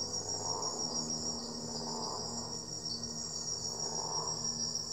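Night insects in rainforest foliage, trilling in a steady, unbroken high-pitched chorus.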